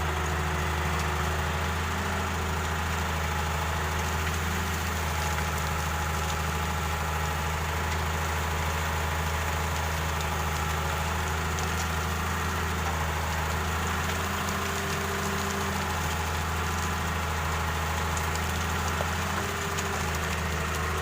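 Heavy diesel engine of earthmoving machinery running steadily at constant speed with a deep, even drone.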